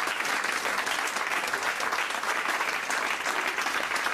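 A studio audience applauding steadily at the end of a stand-up comedy act.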